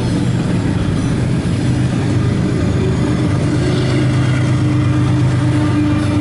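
Steady low rumble and drone of a passing CSX double-stack intermodal train mixed with the running engine of the car it is heard from, the drone rising a little in pitch near the end.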